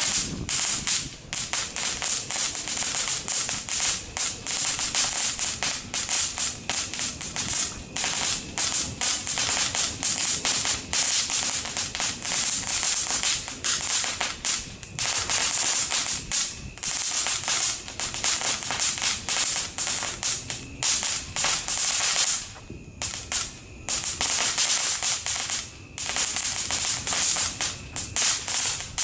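Ground fountain firework burning: a dense, continuous crackling and hiss of sparks, with a couple of brief lulls about three-quarters of the way through.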